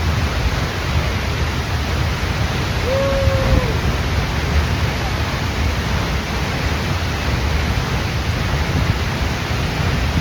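Steady, loud rushing of a waterfall, Mother Falls, close by. One short single tone sounds briefly about three seconds in.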